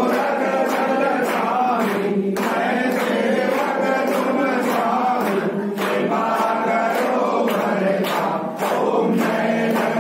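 A group of voices singing a Hindu devotional hymn, over a steady beat of sharp strikes about twice a second.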